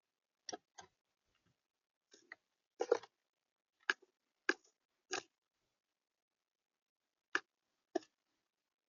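Irregular short taps and clicks, about nine in a row with gaps of up to two seconds, typical of birds pecking at food on a feeder.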